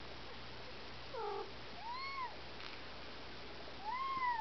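Siamese kitten mewing three short times, each mew gliding up and then down in pitch.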